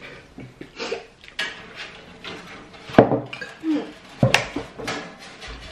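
Kitchen clatter of cutlery and dishes: a fork clinking on a plate and crockery being handled, with two sharp knocks about three and four seconds in.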